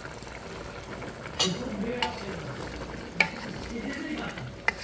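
A spoon stirring a pot of simmering chicken and potato curry, with a sizzling hiss and three sharp knocks of the spoon against the pot.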